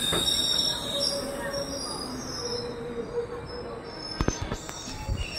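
Passenger train's wheels squealing under braking as it slows into a station, several thin high-pitched tones over a low rumble. A few sharp knocks come near the end.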